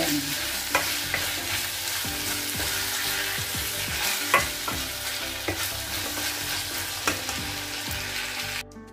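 Ham, onion and green bell pepper sizzling in a stainless steel saucepan while a spatula stirs and scrapes against the pan, with a few sharp clicks. The sizzle cuts off abruptly near the end.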